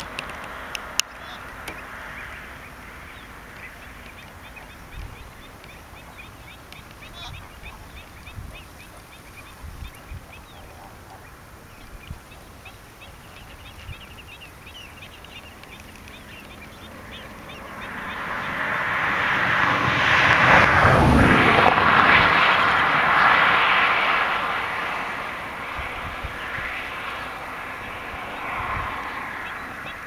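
A flock of greater flamingos calling with goose-like honking and chatter. Past the middle a loud rushing noise builds, peaks and fades away over about eight seconds.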